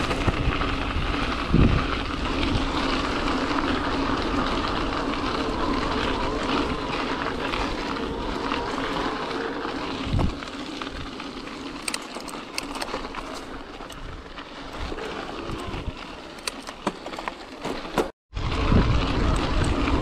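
Riding noise of a Mongoose Teocali e-mountain bike on a singletrack trail: steady wind on the microphone and tyre rumble, with a few knocks in the first half and rapid rattling clicks over rough ground in the second half. The sound cuts out briefly near the end.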